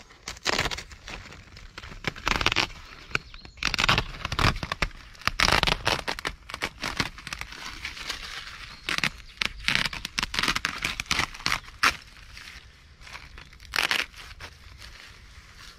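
Plastic sheeting and a plastic bag crinkling and rustling as they are handled, lifted and folded, in irregular bursts with short lulls between.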